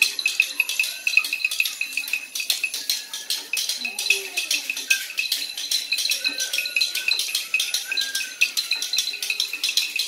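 Hand percussion shakers and rattles shaken quickly and continuously by a group of children, with a high pulsing chirping tone over them and a few short sliding whistle-like calls.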